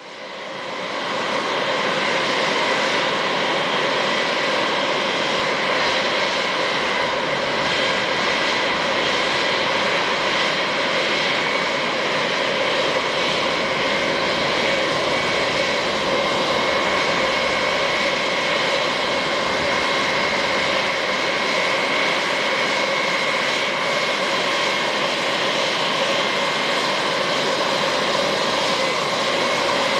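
A Boeing OC-135B's four TF33 turbofan jet engines running at low taxi power as the aircraft rolls in: a steady rushing jet noise with a high whine on top. The sound fades up over the first second or two, then holds level.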